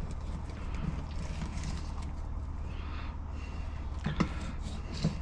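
Fillet knife cutting a side off a jack on a plastic cutting board: faint slicing and scraping with a few light taps, over a steady low hum.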